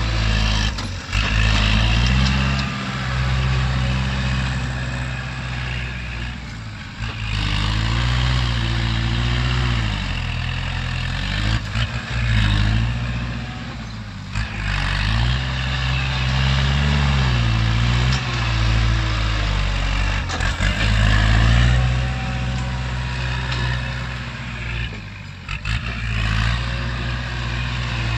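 Kubota tractor's diesel engine running under load as its front dozer blade pushes soil, the engine speed dipping and picking up again several times.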